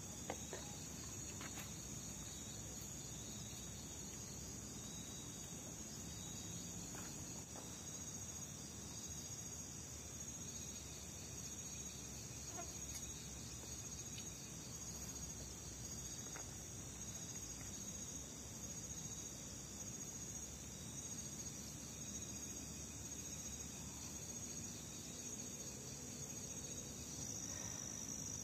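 Night-time insect chorus of crickets: a steady, high-pitched, unbroken trill, with a few faint clicks near the start.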